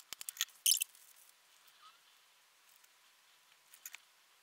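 Faint clicks and handling noises of hand soldering work on the amplifier's rectifier diode board, with a brief louder scratchy burst under a second in and a couple of small clicks near the end.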